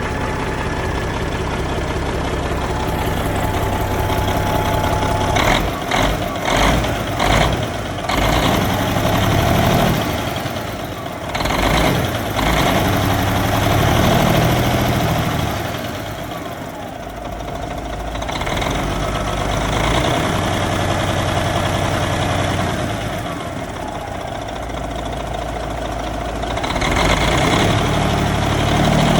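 Freshly rebuilt Caterpillar C15 inline-six diesel engine running after its first start, idling with the engine speed swelling up and back down several times.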